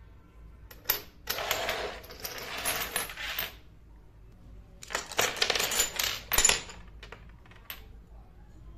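Miniature ceramic plates and dishes clinking and clattering against each other and a hard surface as they are handled and set down. A single click comes about a second in, then two runs of clatter of about two seconds each, and one last click near the end.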